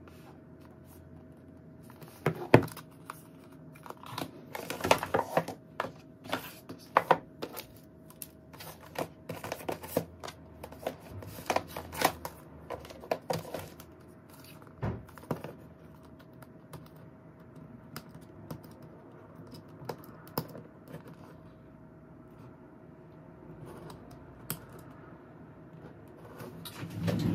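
Hands with long fingernails handling smartphone packaging: irregular light taps, clicks and scrapes on cardboard boxes and plastic, busiest in the first half and sparser later.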